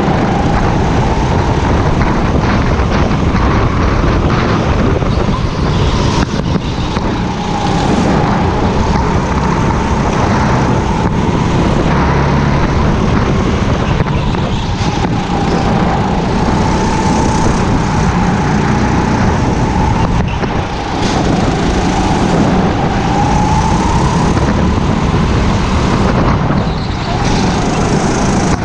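Go-kart engine heard from on board during a race: a loud, steady rush of noise with an engine tone that rises and falls again and again as the kart accelerates and slows, with a few brief dips.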